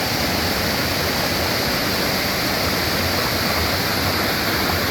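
Waterfall and creek rushing: a steady, even roar of falling water.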